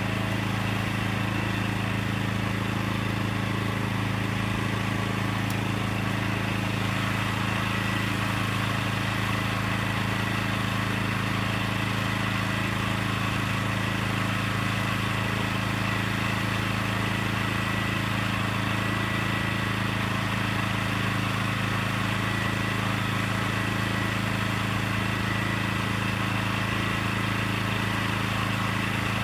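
Small single-cylinder gasoline engine on the scale trailer's gooseneck running steadily at a constant speed, with no change in pitch or level.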